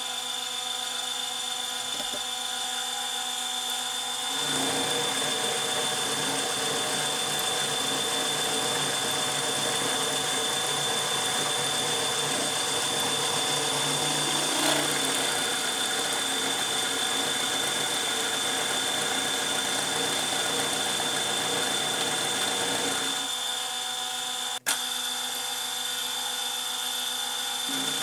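Milling machine spindle running with a steady high whine while an end mill side-cuts a steel part. The louder cutting noise starts about four seconds in and eases off about five seconds before the end.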